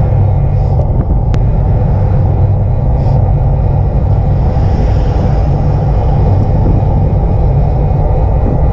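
Road bike rolling along asphalt at about 25 km/h, heard from a handlebar-mounted GoPro: a steady, loud low rumble of wind on the microphone and tyres on the road surface.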